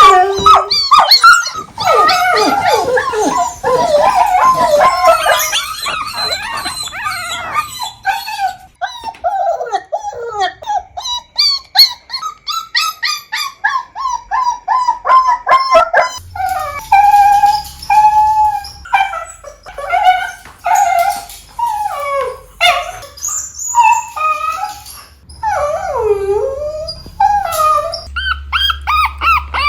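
Dogs whining and crying: many short, high-pitched whines and yelps that bend up and down in pitch, some drawn out into howl-like cries. About halfway through, a low hum comes in under the cries.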